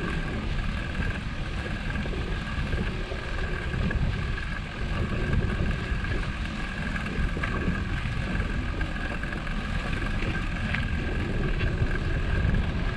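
Wind buffeting the microphone in a steady, gusty low rumble, with a thin steady high whine underneath.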